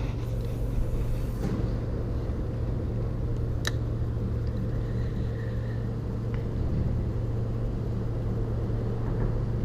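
Steady low rumble of motor traffic on a road bridge, holding even throughout, with one sharp click about three and a half seconds in.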